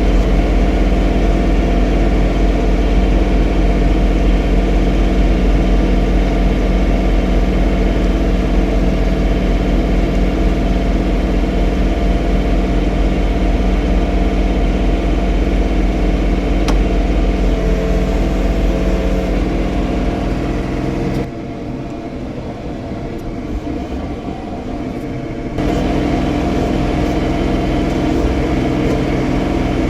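John Deere 3046R compact tractor's three-cylinder diesel engine running steadily under load while snow blowing. The sound drops quieter for about four seconds near the end, then returns.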